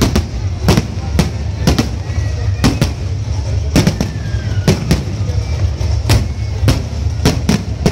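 Aerial fireworks shells bursting in a rapid, uneven series of sharp bangs, about two a second, over a steady low rumble.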